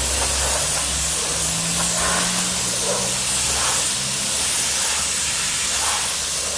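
High-pressure car wash lance spraying water onto an SUV's bodywork and wheels: a loud, steady hiss, with a low hum underneath.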